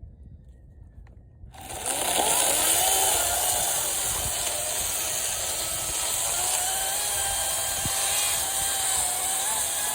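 Ryobi 40-volt battery-powered electric chainsaw starting up about a second and a half in, its whine rising quickly. It then runs on steadily as it cuts into a thick mesquite trunk, the pitch of the whine wavering under load.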